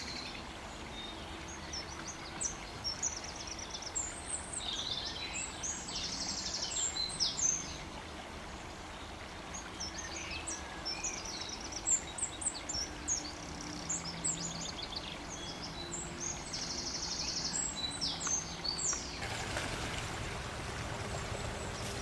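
A small songbird singing two long phrases of high, varied notes, each with a fast trill. Near the end the song gives way to a steady rush of splashing water from a bathing mallard.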